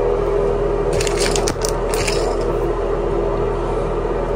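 A few short clicks and scrapes of plastic parts being handled as a toilet fill valve is seated in the tank, bunched between about one and two seconds in, over a steady hum.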